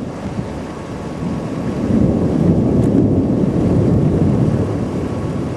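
Wind buffeting the microphone, with a low rumble that swells about two seconds in and eases off near the end.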